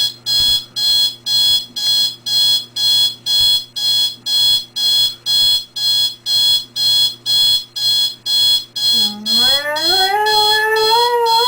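Electronic alarm clock beeping, a high-pitched beep about twice a second. About nine seconds in, a dog starts howling at it, the howl rising in pitch and then holding over the beeps.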